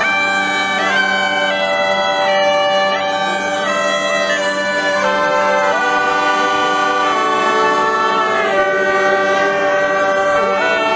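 Italian bagpipes (zampogna) playing a stepping melody over a steady low drone.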